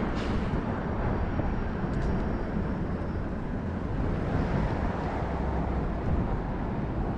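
Outdoor city street ambience: a steady low rumble of traffic with no distinct events.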